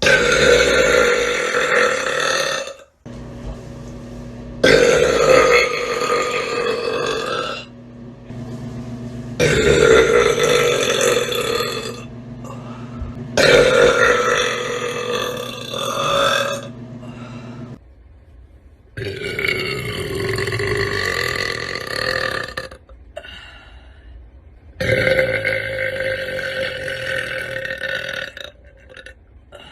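A person belching loudly, six long drawn-out burps one after another, each lasting about three to four seconds with short pauses between.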